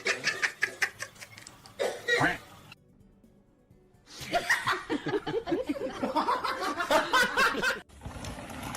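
A person laughing hard in rapid, repeated bursts, which break off suddenly for about a second and then start again. Near the end it cuts abruptly to a steady hiss.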